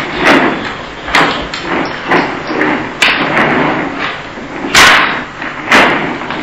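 Plastic baby walker knocking and thudding on a wooden floor as a baby pushes and bangs at it, about one knock a second, the loudest a little before five seconds in.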